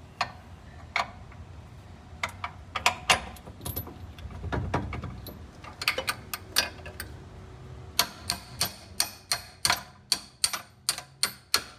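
Metal ratchet clicking: scattered clicks and clinks at first, then a quick even run of about three clicks a second over the last few seconds.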